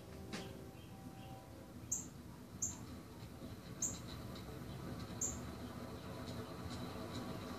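36-inch View Fan industrial ceiling fan running on its high speed: a steady rush of air with a faint motor hum, slowly getting a little louder. Short high chirps come through about five times at uneven intervals.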